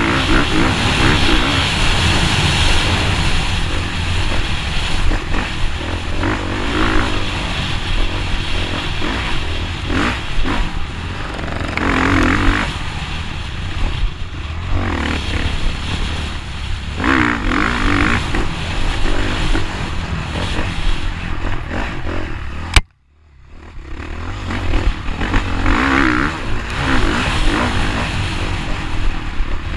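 Motocross bike engine running hard under the rider, rising and falling with the throttle as it races over the dirt track. About three-quarters of the way through there is a sudden loud spike, then the sound cuts out almost completely for about a second before building back up.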